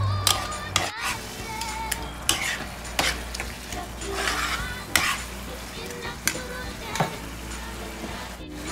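A metal spoon stirring and scraping shrimp paste and pork in a nonstick frying pan, knocking against the pan about once a second, while the food sizzles.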